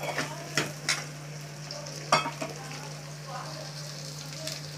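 Garlic cloves and sliced shallots sizzling in hot oil in a metal kadai as they are sautéed, stirred with a steel ladle that clicks against the pan a few times, most sharply about two seconds in.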